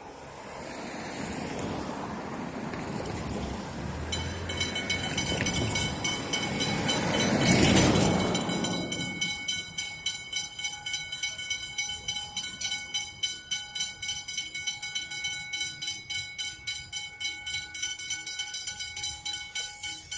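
Puffing Billy narrow-gauge steam train passing: it builds up to its loudest about eight seconds in as the locomotive goes by, then the carriages roll past with a fast, even clatter of wheels on the rails and a high steady squeal over it.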